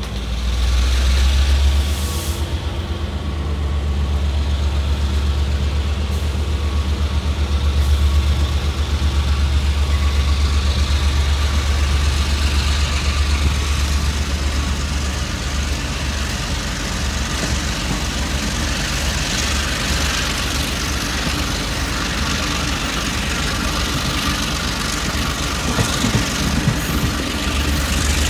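Diesel locomotive hauling a Taiwan Railways ordinary train, its engine running with a steady heavy rumble as the train pulls out of a station, heard through an open carriage window.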